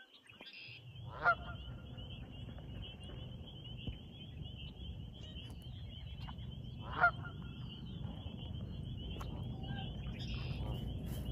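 Canada geese honking: two single honks, about six seconds apart, over a steady high-pitched chirring and a low rumble.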